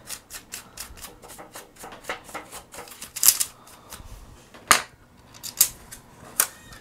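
Bristles of a small paintbrush scratching repeatedly over the open bay of a laptop's underside, sweeping out dust: a quick run of short scratchy strokes, several a second, with a few louder ones in the second half.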